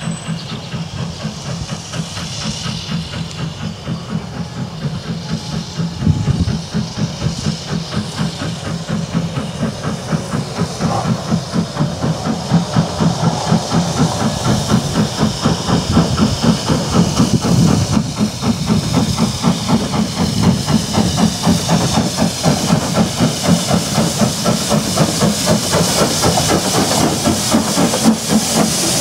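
LMS 'Jinty' 0-6-0 tank locomotive working hard under steam: a steady rhythm of exhaust chuffs over a continuous hiss of steam, getting louder as the engine draws near and passes with its coaches.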